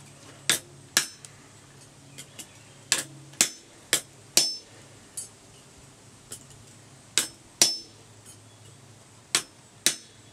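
Hammer striking a cold chisel set in the forge weld of a wrought iron hook on an anvil, splitting the weld: about a dozen sharp metallic blows, mostly in pairs about half a second apart with pauses between, some leaving a brief ring.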